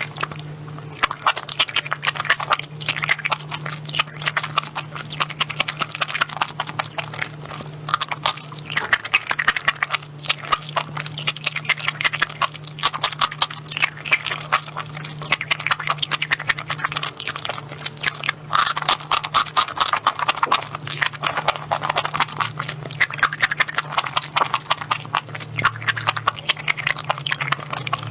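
Close-miked eating: continuous wet, clicky chewing and mouth sounds in an irregular quick patter, over a steady low hum.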